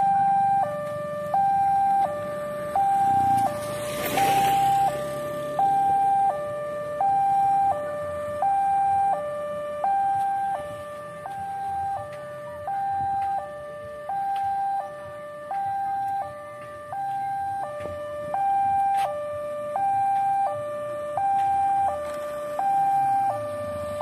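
Automatic level-crossing warning siren sounding a steady two-tone hi-lo wail, switching between a higher and a lower tone about every 0.7 seconds to warn of an approaching train. The tone is smooth and clear, the sign of the siren working normally rather than the hoarse sound it gave when faulty.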